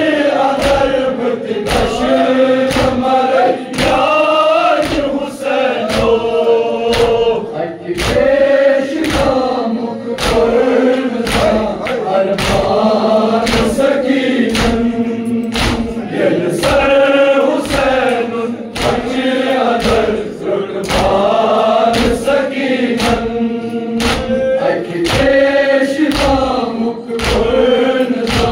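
A group of men chanting a Kashmiri noha, a Muharram lament, together in a melodic refrain. Under the voices runs a steady beat of hands striking chests (matam).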